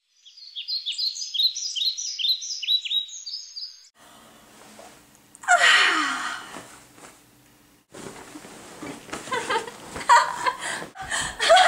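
Birdsong: a run of quick, repeated high chirps for about four seconds. Then a person's loud vocal sound falling in pitch, followed by more short wordless voice sounds near the end.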